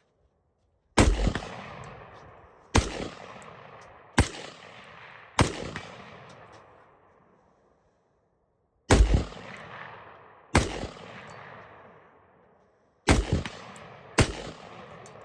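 Diamondback DB15 AR-15 rifle firing eight single shots at an uneven pace, mostly a second or two apart with a longer pause midway. Each shot is followed by a long echo that dies away.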